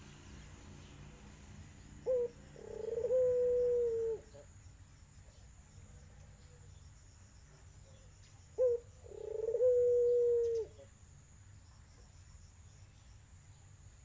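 Tangerine-coloured puter dove cooing twice: each call is a short note followed at once by a long, steady coo of about two seconds, the second call coming about six seconds after the first.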